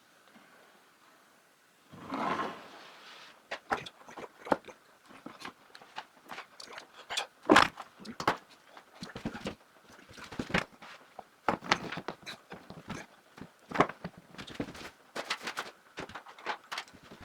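Irregular sharp clicks and light knocks of hands working on network cable and gear, with a short soft rustle before them; they start about three and a half seconds in after a quiet start.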